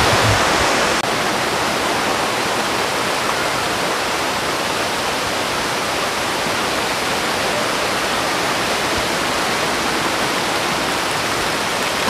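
Waterfall cascading over rocks into a shallow, rocky stream: a steady, loud rush of water, slightly quieter after about a second.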